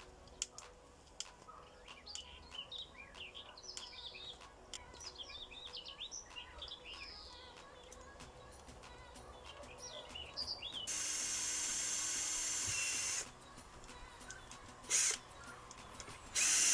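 Small birds chirping and twittering, then a power drill runs steadily for about two seconds, followed by two short bursts near the end, as screws are driven into the wooden sticks of a door.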